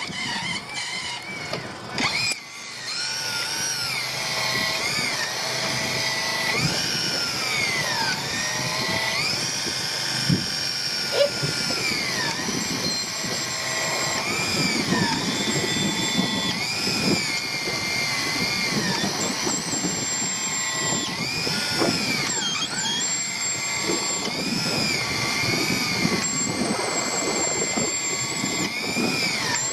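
Electric fishing reel winding in line, its motor whine rising and falling again and again as the load on the line changes.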